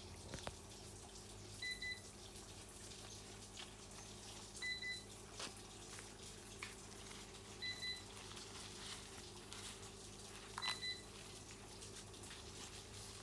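A short high beep, each one a quick pair, repeating at a steady pace about every three seconds over a low steady hum and a few faint clicks.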